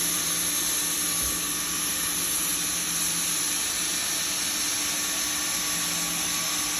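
Hot-air welding gun blowing steadily: an even hiss of hot air over a low, steady motor hum, as it melts vinyl weld rod into a grooved seam in sheet vinyl flooring.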